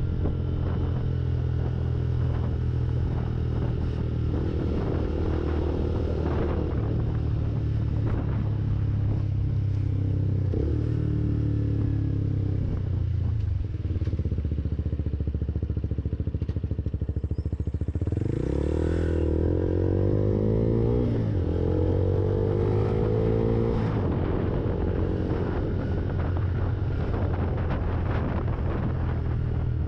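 Lexmoto Viper 125 motorcycle's single-cylinder engine running under way. Its pitch holds steady, eases off, then climbs through the gears, with the strongest climb about two-thirds of the way in.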